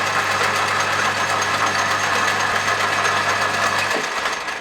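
Metal lathe running steadily with its electric motor's hum, then switched off about four seconds in, the hum stopping abruptly and the spindle noise fading as it spins down.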